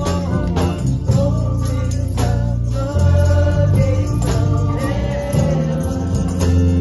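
Congregation singing a gospel praise song with live instrumental backing: a heavy, sustained bass line under a steady beat.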